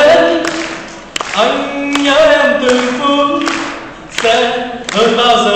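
A man singing a Vietnamese love song unaccompanied into a microphone. He holds long phrases, with short breaks about a second in and again about four seconds in.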